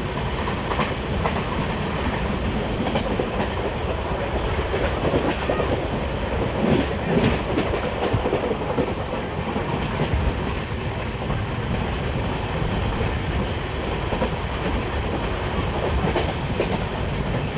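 Passenger train coach running steadily along the track: a continuous rumble of wheels on rail with clickety-clack over the rail joints and a few sharper clanks about seven seconds in.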